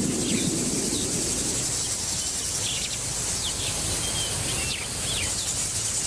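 Grassland ambience: a steady high insect hum with many short bird chirps scattered through it, over a low steady rumble.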